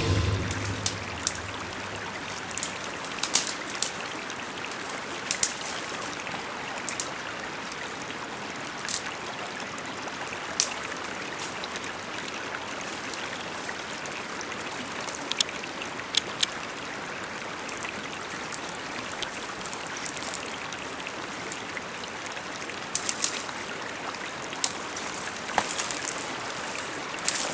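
River water rushing steadily, with scattered sharp snaps and crackles of twigs and dry brush being pushed through on foot, coming more often near the end.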